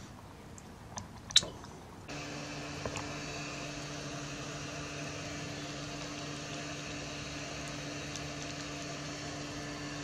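A few light clicks and one sharp click, then a steady low hum begins about two seconds in and runs on evenly.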